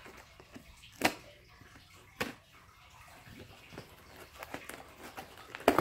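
A taped cardboard shipping box being worked open by hand: three sharp snaps or clicks, one about a second in, one about two seconds in and one near the end, with faint scraping and rustling between them.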